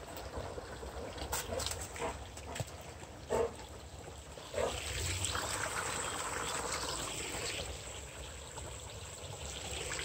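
Shallow forest brook trickling over stones, faint and steady, with a couple of brief knocks a few seconds in and the trickle a little louder for a few seconds in the middle.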